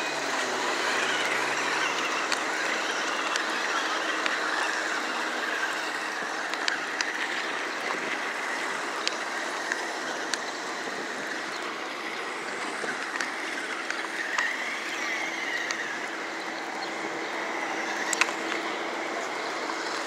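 Battery-powered toy RC side-by-side, a 12.8-volt four-wheel-drive, driving along: a steady whir from its small electric motors and gears, with its wheels rattling over the road and brick pavers and scattered small clicks.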